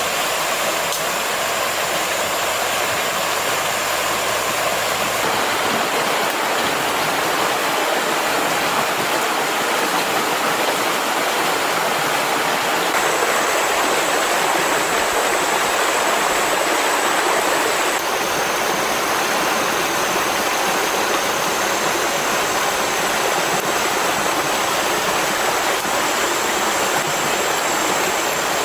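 Stream water running steadily with an even rushing hiss, and a thin steady high tone above it that shifts in pitch twice.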